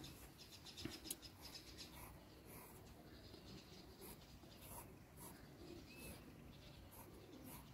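Faint scratching of a wooden pencil drawing short strokes on paper.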